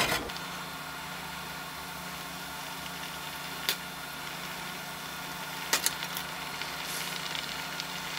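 Water with sweet corn kernels boiling in a stainless-steel saucepan, under a steady low hum. A metal spoon clinks lightly against the pot a few times, about four seconds in and twice around six seconds.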